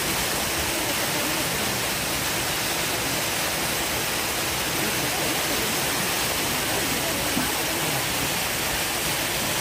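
Steady rush of an artificial waterfall pouring into a pool.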